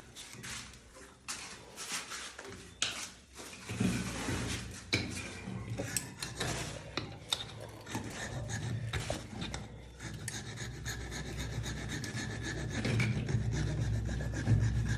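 Rust being rubbed and scraped off metal by hand: repeated, irregular rasping strokes.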